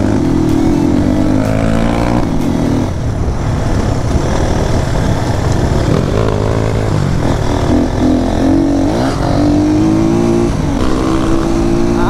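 HJ250 motorcycle engine running under way, its note rising and dropping again and again with throttle and gear changes, over steady wind and road noise.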